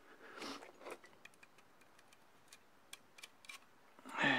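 A scatter of light, sharp metal clicks and ticks from a hand staple gun and its staple strips being handled and loaded. A short, louder vocal sound comes near the end.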